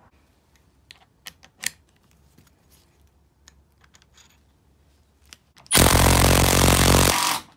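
Scattered light clicks of a lag screw being handled and fitted into a socket, then a cordless impact driver hammering the lag screw into a wooden beam for about a second and a half before it stops suddenly.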